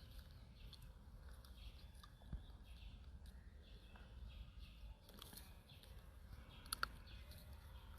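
Faint outdoor background with a steady low rumble, a small click a couple of seconds in, and two brief high chirps close together near the end.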